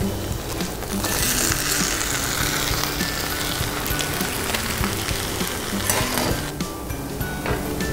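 Raw cheese tortilla dough sizzling as it is laid on a hot electric griddle. The hiss starts about a second in and dies down after about five seconds, with background music throughout.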